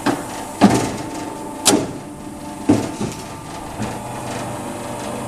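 Electric guillotine paper cutter running its cutting cycle: a steady motor hum with a fixed tone, broken by about five sharp clunks roughly a second apart from the clamp and blade mechanism working through a stack of paper.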